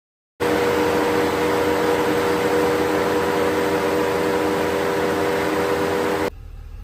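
2015 Ford F-350's 6.7-litre Power Stroke V8 turbo diesel running fast and hard at raised idle during a forced static DPF regeneration, burning off the soot in a clogged diesel particulate filter. It is a loud, steady drone with a few held tones through it, starting suddenly under half a second in and cutting off abruptly near the end.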